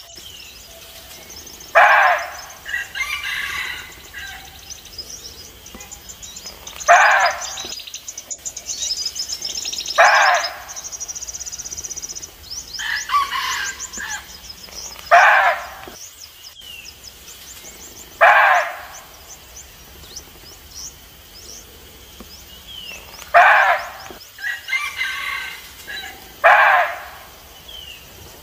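Red muntjac barking: seven short, sharp barks spaced a few seconds apart, the call muntjacs typically give when they sense a threat. Small birds chirp faintly in the background.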